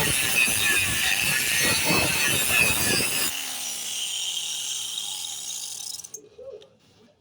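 Angle grinder with a grinding disc grinding down a weld on metal, loud and harsh. About three seconds in the sound goes lighter and higher, and it stops abruptly about six seconds in.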